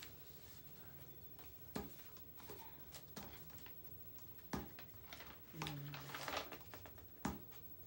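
Scattered small clicks and knocks of objects being handled in a quiet small room, with a brief rustling sound about three-quarters of the way through.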